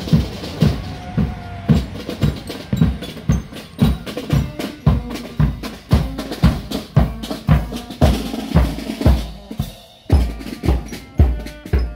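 Marching band drum corps playing a march beat, the bass drum on about two beats a second with snare drums rattling over it. Near the end the drumming breaks off briefly, then bell lyres come in with a tune over the drums.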